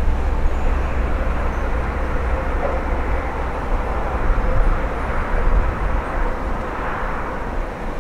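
Jet engines of a landing Boeing 767-300ER airliner, a steady noisy roar over a low rumble, swelling slightly around five to seven seconds in.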